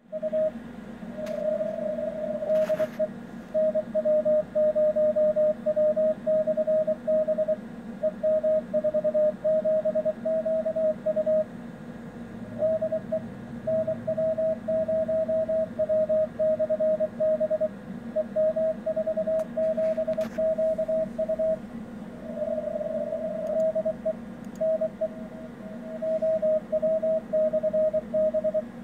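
Morse code from a 2-metre CW beacon (an Etherkit Si5351a on 144.278 MHz, downconverted to 24 MHz) heard as a single keyed tone in an SDR receiver's CW audio, switching on and off in dots and dashes. A steady low hum runs underneath.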